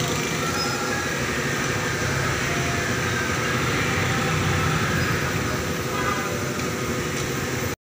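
Steady background din of a busy auto repair shop, with vehicle and workshop machinery noise and a few brief faint tones, cutting off abruptly at the end.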